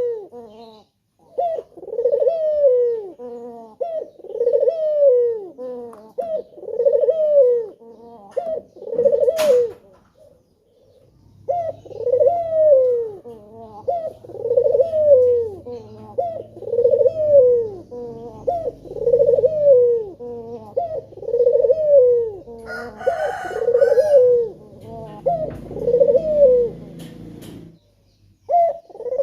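Male Barbary dove (puter) cooing over and over, the same rolling, arched coo phrase repeated roughly every second or two, with a short break about a third of the way through. A sharp click comes just before the break and a brief rustling noise about three-quarters of the way through.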